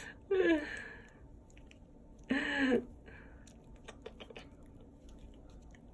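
Toy poodle puppy chewing food, with small quiet clicks of crunching over the second half. In the first three seconds there are two short drawn-out vocal sounds, like a person's "ah".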